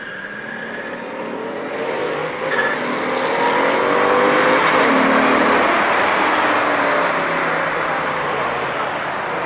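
A pack of Corvettes racing past together, several V8 engines running at once with their pitches overlapping and shifting. The sound builds to its loudest about halfway through and then slowly fades.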